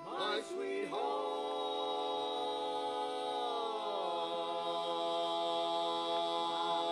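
Four men singing a cappella in close harmony, holding long sustained chords; about three and a half seconds in the chord slides down to a lower one, which is held.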